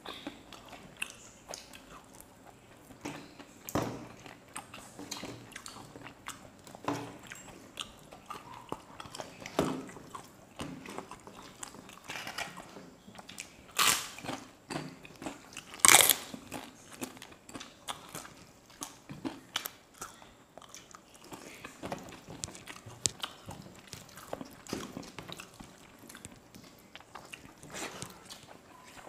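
Close-up eating sounds of two people eating rice, dal and fish with their hands: scattered chewing and small crackles. Crisp papad is bitten with two loud crunches about two seconds apart past the middle, the second the loudest.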